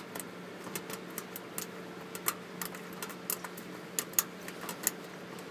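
Irregular light metallic clicks, a few a second, of a homemade cotter-pin pick working the pin tumblers of a toolbox lock while a torsion bar holds slight turning pressure. A steady low hum runs underneath.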